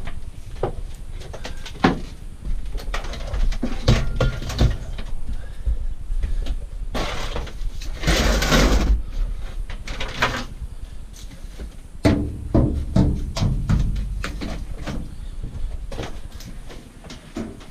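Scrap metal being handled and sorted: irregular knocks, clunks and clatter, with a longer noisy rush about eight seconds in.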